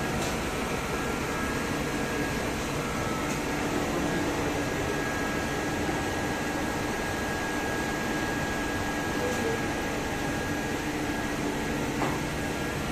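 Cielle Beta CNC machine running inside its enclosure: a steady mechanical whir and hum with a faint high-pitched whine held throughout. There is a single short click about twelve seconds in.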